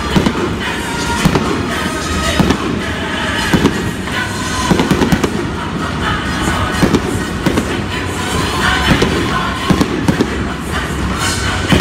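Fireworks display: a rapid, irregular string of sharp bangs and crackles from bursting shells, with music playing underneath.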